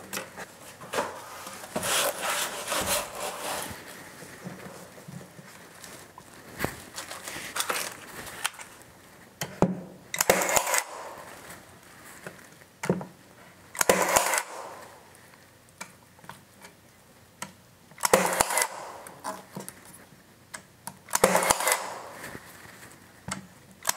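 Pin nailer driving pin nails to anchor a glued strip of bent lamination against a curved skirt board. It fires about four times in the second half, several seconds apart, with lighter clicks and handling sounds of the wood strip before.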